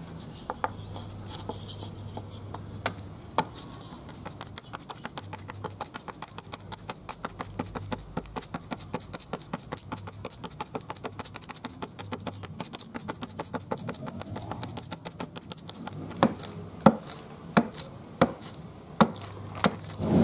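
Quick, light wooden taps, several a second, then a few louder sharp knocks near the end: a small wooden block being struck and chipped by hand to free its hole-saw plugs.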